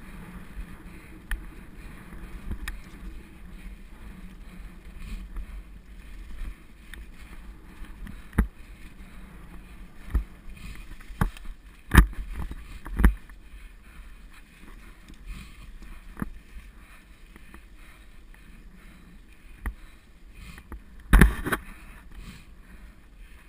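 Mountain bike riding fast down a leaf-covered dirt singletrack: steady rumble of the tyres and wind on the helmet camera's microphone, broken by sharp knocks and rattles as the bike jolts over bumps, the loudest about halfway through and a cluster near the end.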